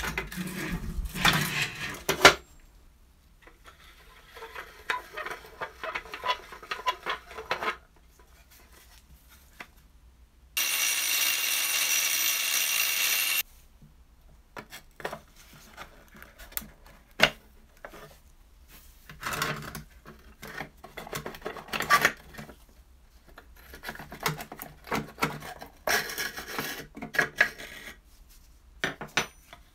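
Hand disassembly of a rusty Tonka toy cement mixer: hard plastic housing and metal parts clicking, knocking and scraping against a wooden bench. About eleven seconds in, a small power tool runs steadily for about three seconds.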